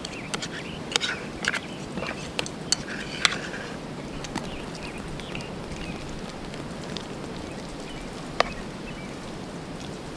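Clicks and scrapes of tuna and mayonnaise being mixed by hand, most of them in the first few seconds, with one sharp click near the end, over a steady background hiss.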